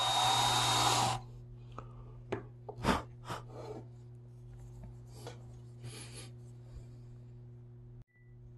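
Cordless drill running briefly as its small bit drills into a carved wooden puppet head, stopping about a second in. After that come a few light knocks and rubs as the wooden piece is handled.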